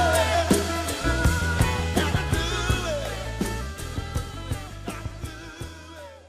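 Background music: a rock-soul song with drums, bass, guitar and some vocal lines, fading out steadily to its end.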